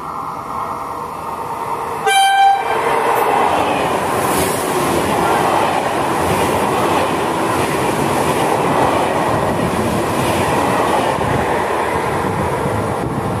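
Italo high-speed electric train running through the station without stopping. A short horn blast sounds about two seconds in, then the loud, steady noise of the train going by for about ten seconds.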